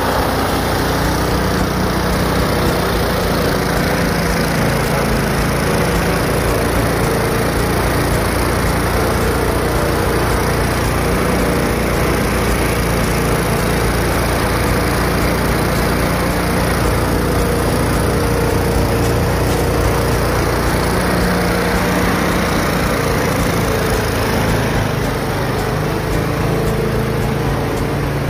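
Rover petrol lawn mower engine running steadily at speed, driving a burnishing pad fitted in place of the blade against a sealed concrete floor.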